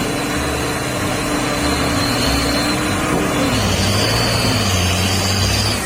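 A vehicle engine running with a loud rushing noise, its pitch dropping a little past halfway through. Low background music plays underneath.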